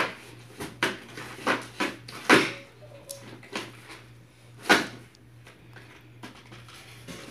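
Cardboard packaging being handled as an RC car is worked free of its box: a string of sharp knocks, scrapes and rustles, loudest a little over two seconds in and again near five seconds.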